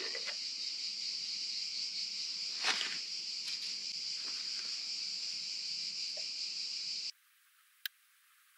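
Steady high-pitched background drone with one knock about three seconds in; it cuts off suddenly about seven seconds in.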